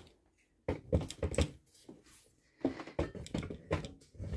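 Handling noise from the camera being picked up, carried and set down: irregular knocks and rustles in two clusters, about a second in and again near the end.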